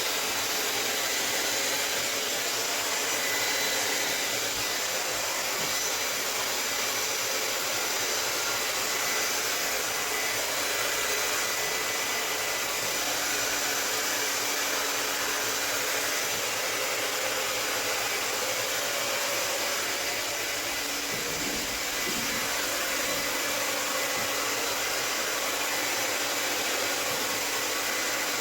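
Handheld hair dryer running steadily, its airflow blowing wet acrylic paint across a canvas. A brief low thump sounds about two-thirds of the way through.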